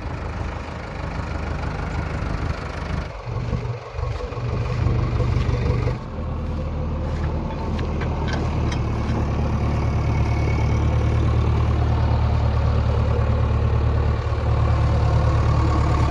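Heavy diesel engine running steadily, its note changing a few seconds in and growing louder toward the end.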